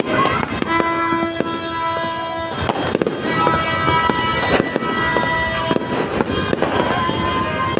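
Fireworks crackling and popping in quick succession, over music with long held notes.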